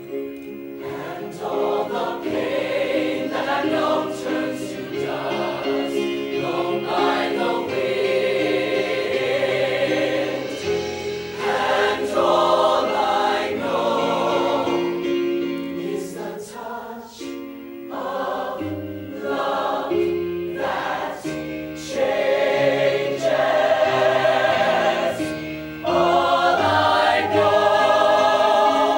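High school show choir singing in harmony over its live band, with sustained chords and sharp percussion hits through the music.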